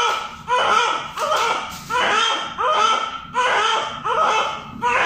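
Newborn baby crying in a steady run of short, high-pitched wails, about seven in a row, each rising then falling, with a quick breath between them.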